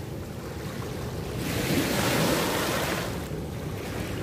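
Dam overflow water rushing and churning out of a concrete outlet into the river, with wind on the microphone; the noise swells for a couple of seconds in the middle.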